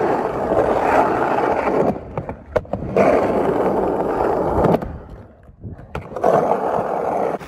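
Skateboard wheels rolling fast over skatepark concrete in three stretches. The rumble drops away twice, with a sharp click or two in the lulls.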